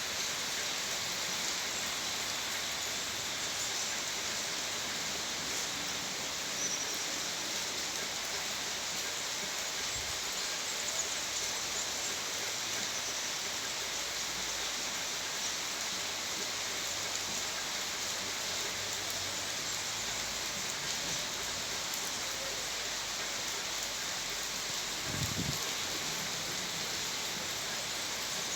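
Steady rain falling with an even hiss and no thunder.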